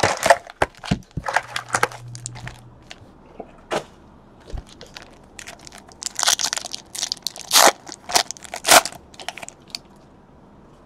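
Foil trading-card pack wrappers crinkling as packs are handled and pulled from a box, then a foil pack crackling and tearing open in a few quick rips about six to nine seconds in.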